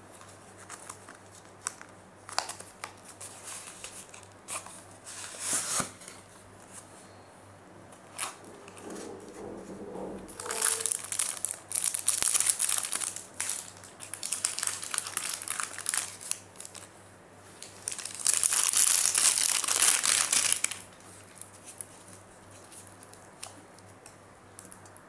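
Plastic packaging and tissue paper crinkling and rustling in the hands as a watch box is unpacked. It comes in several bursts, the loudest about 18 to 20 seconds in, with light clicks and taps of the cardboard box before them.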